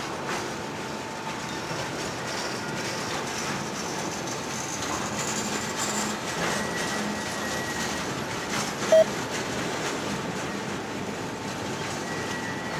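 Train cars rolling slowly as the work train is shoved in reverse, a steady rumble of wheels on rail with a faint thin squeal from the wheels. A short loud single-pitched tone sounds about nine seconds in.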